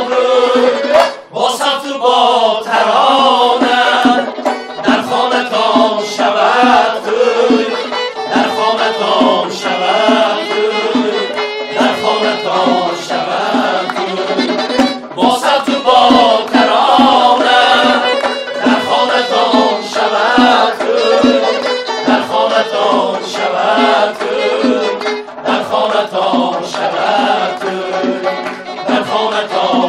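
A group of men singing a song together in chorus.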